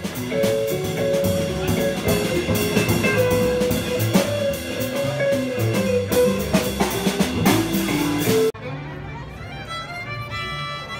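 Live jazz band playing, with drum kit and guitar. About eight and a half seconds in it cuts off abruptly to a solo violin played quieter, a street busker.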